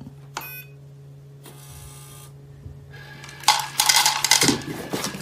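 Automatic pet feeder dispensing: a short beep, a steady low motor hum, then from about three and a half seconds a loud dry rattling clatter as food pours into the bowl.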